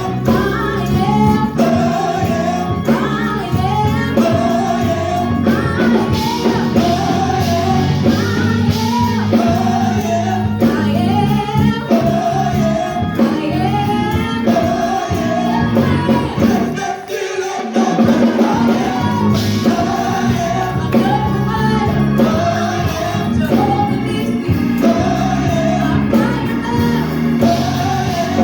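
Gospel song sung by a group of voices with instrumental backing and a steady bass line; the bass drops out for a moment about two-thirds of the way through.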